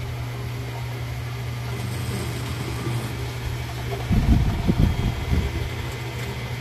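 A sleeping man snoring: one long, rough, fluttering snore about four seconds in, over a steady low hum.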